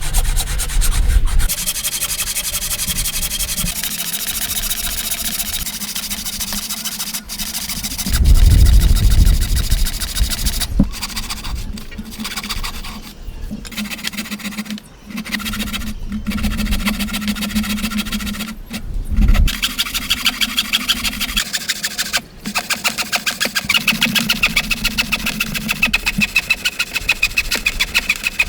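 A woodworking tool rasping against timber in fast, even strokes, with heavier low rumbles about eight seconds in and again near nineteen seconds.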